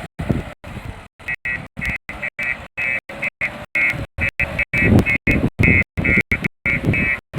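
Backhoe loader engine noise cut into rapid short snippets with dead-silent gaps between them. From about a second in, a high beeping tone repeats over it.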